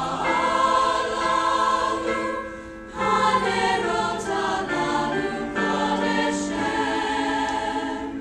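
Mixed-voice choir singing sustained chords, with a short breath between phrases about two and a half seconds in.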